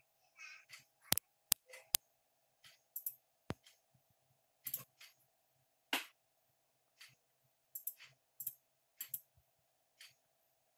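Computer mouse clicking, with three sharp clicks in the first two seconds and more about three and a half and six seconds in. Short scratchy rustles are scattered between them over a faint steady hum.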